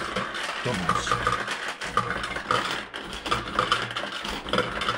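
Fruit machine in play: a busy run of short electronic bleeps and clicks.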